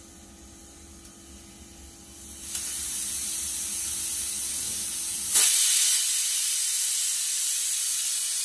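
Aluminium stovetop pressure cooker venting steam through its weight valve: a soft hiss begins about two and a half seconds in, then jumps suddenly to a loud, steady hiss of escaping steam about five seconds in. This is the cooker reaching pressure and releasing it.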